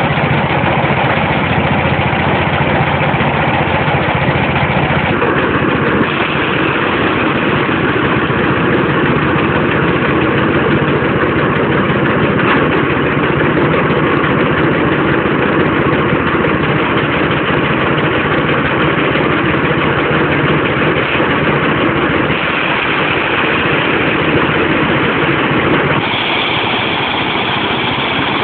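Small diesel engine running at a steady speed, driving a rice thresher: a loud, continuous mechanical din whose tone shifts slightly a few times.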